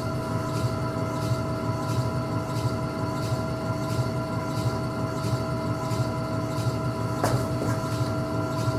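Electric potter's wheel running with a steady hum and a faint regular tick about every two-thirds of a second as it turns, while the wet clay is shaped. One sharper click sounds about seven seconds in.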